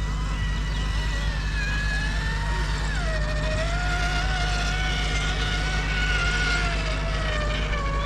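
Whine of an RC scale crawler's electric motor and gearbox, changing pitch with the throttle. It drops sharply about three seconds in, then sinks slowly. A steady low hum runs underneath.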